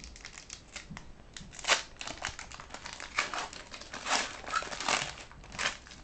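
Foil wrapper of a hockey card pack crinkling and crackling in the hands as the pack is opened and the cards slid out, in short irregular crackles, the loudest just under two seconds in.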